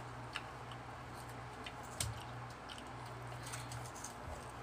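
Scattered small wet mouth clicks and smacks of people eating ripe mango, over the steady low hum of an electric stand fan.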